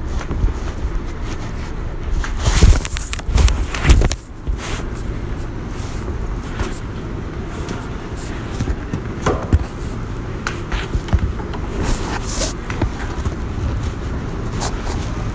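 Steady low background rumble, like street traffic, with a cluster of loud knocks and clattering about two to four seconds in and a few lighter clicks later.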